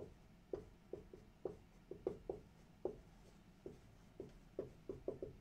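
Dry-erase marker writing on a whiteboard: a string of short, irregular strokes, about three a second.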